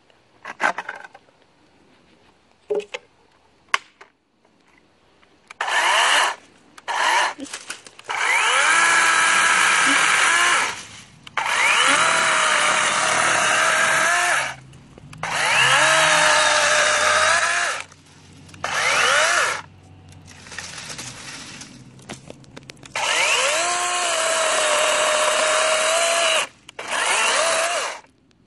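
DeWalt 20V brushless 12-inch battery chainsaw (DCCS620B) cutting a branch, its motor and chain whining up to speed in a string of trigger pulls of a few seconds each, with the pitch sagging as the chain cuts. A few faint clicks come before the first pulls.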